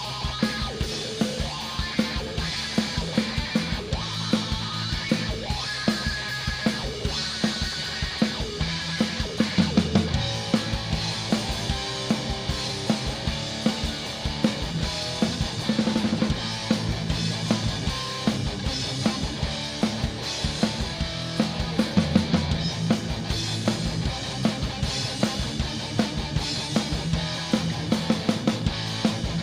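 Live band playing an instrumental passage with no singing: a drum kit keeping a steady beat on bass drum and snare under guitar.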